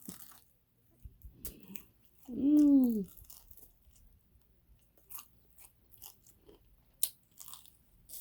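Close-up chewing and crunching of chicken wings, with scattered short crunches and mouth clicks. About two seconds in, one drawn-out vocal sound that rises then falls in pitch, the loudest thing heard.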